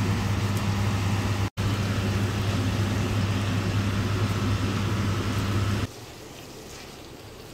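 Steady mechanical hum of a running kitchen appliance fan, a low drone with a rushing noise over it. It breaks off for an instant about one and a half seconds in, and about six seconds in it falls to a faint hiss.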